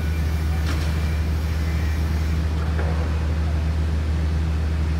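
A steady low motor-like hum that holds an even level throughout, with a faint tick about a second in.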